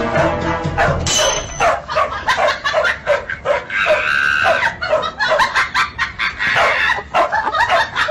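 A dog barking over and over, short high yips at about three a second, with one longer drawn-out note about four seconds in.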